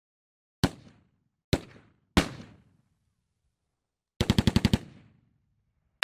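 Gunshot sound effects: three single shots, each with a short decaying tail, then a rapid burst of machine-gun fire about four seconds in, with dead silence between them.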